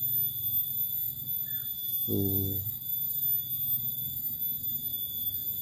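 Insects droning: a continuous, even high-pitched tone with a low rumble beneath it. A brief voice sound comes about two seconds in.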